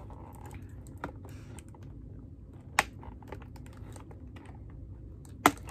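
Handling of a doll's cardboard-and-plastic packaging as the doll is worked free: light rustling with a few separate sharp clicks, the loudest near the end.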